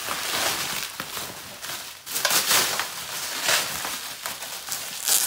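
Bubble wrap being pulled off a packaged candle box by hand: plastic crinkling and rustling unevenly, with louder crackles about two and a half seconds in and again near the end.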